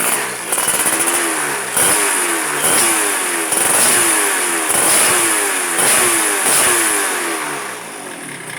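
Two-stroke Yamaha Force 1 engine in a Honda C70, running through an aftermarket MK Racing exhaust, blipped with the throttle again and again, about once a second, each rev rising and falling back. It eases toward idle near the end.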